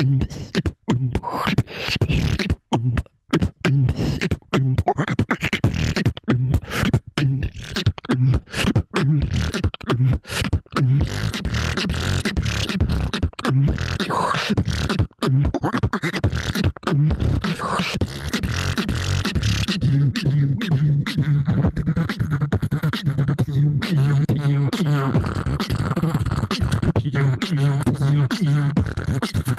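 Solo beatboxing, all made by mouth: sharp kick- and snare-like hits with short gaps between them at first, then denser, continuous percussion. From about twenty seconds in, a sustained low bass hum is held underneath the beat.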